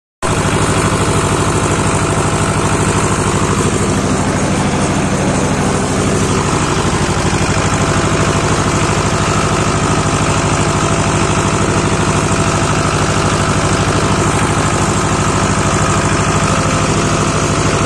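Ursus tractor's diesel engine running steadily at low revs, heard from the driver's seat. It cuts in abruptly at the very start and holds an even, unchanging note throughout.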